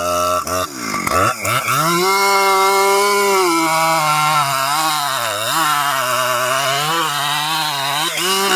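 Chainsaw running hard on the oak: its engine pitch drops sharply about a second in, climbs back to full revs, then sags and recovers several more times as the chain bites into the wood.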